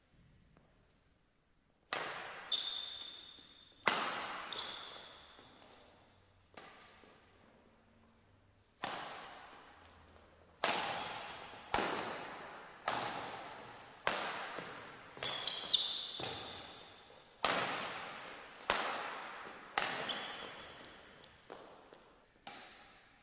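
Badminton rally: rackets striking the shuttlecock about once a second, starting about two seconds in, each hit ringing on in the echo of a large sports hall, with short squeaks of shoes on the court floor.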